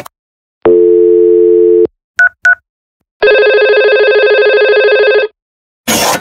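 Simulated desk-phone call sounds from Cisco Packet Tracer's IP phone: a dial tone for about a second, two short keypad tones as digits are dialled, then a warbling ringback tone for about two seconds while the call rings out. A short noisy burst comes just at the start and another near the end.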